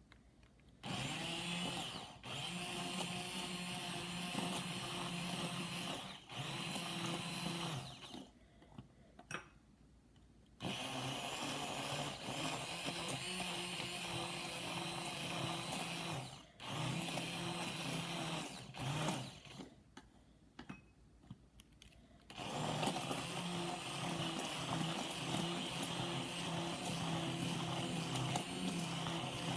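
Electric blending appliance running as it mixes pancake batter, with a steady motor hum. It runs in several spells of a few seconds, with pauses of about two seconds, then keeps running through the last part.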